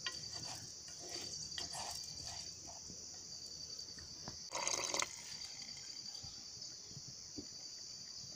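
Steady high insect chirring with a fast pulse throughout. In the first couple of seconds a wooden spoon scrapes and stirs rice in a metal pot. About four and a half seconds in comes a brief, loud rushing noise lasting about half a second.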